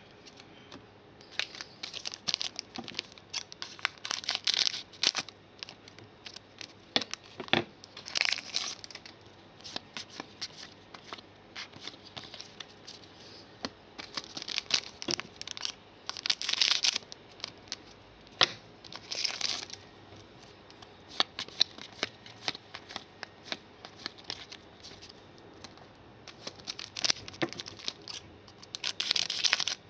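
Shiny foil trading-card packs crinkling and being torn open, with cards handled in between: irregular crackles and rustling bursts, the longest lasting about a second.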